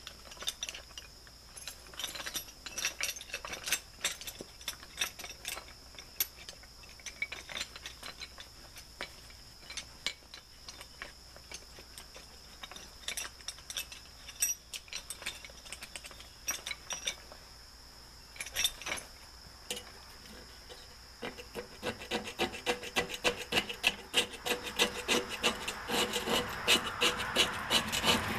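Small screwdriver scraping hardened gasket cement out of the steel channel of a wood stove insert's door, in short, irregular scratching strokes that come faster and louder in the last several seconds.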